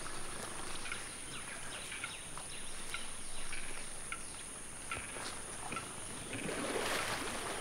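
Tropical rainforest ambience: a steady high insect drone with scattered short bird chirps, and a brief swell of noise about seven seconds in.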